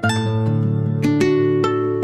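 Background music: an acoustic guitar picking single notes that ring out one after another.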